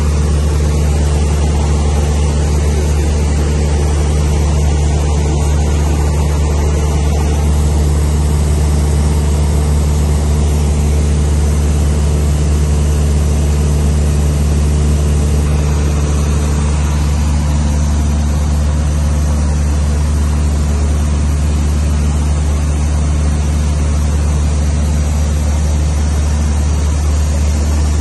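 Cessna 152's four-cylinder Lycoming engine and propeller droning steadily in cruise, heard inside the cabin.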